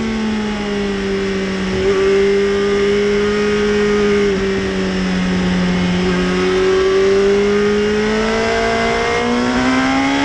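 Yamaha YZF-R1's 20-valve inline-four engine pulling along at road speed, heard from on the bike with wind noise under it. The engine note sags slightly at first, holds steady, then rises toward the end, stepping up in pitch about nine seconds in.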